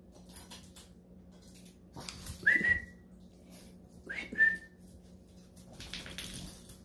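Dogs at play, with two short high-pitched whines about two seconds apart, each with a quick sharp start and then a held note, among soft scuffling.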